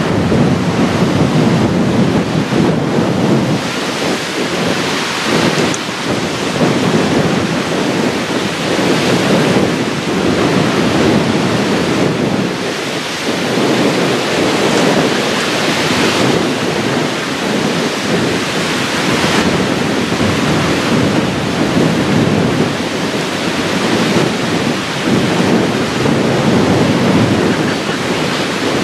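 Strong wind buffeting the microphone in loud, rumbling gusts, mixed with choppy waves washing against a rocky shore.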